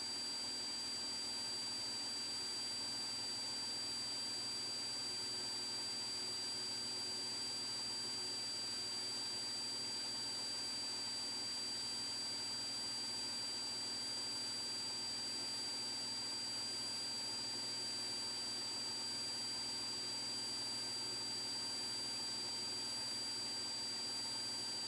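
Steady faint hiss with a thin, constant high-pitched whine. This is electrical noise on the audio line, with no engine or voices heard through it.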